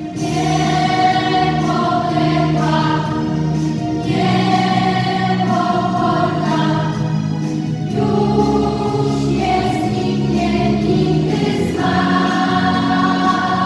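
Children's school choir singing a song together, with long held notes that change every second or two.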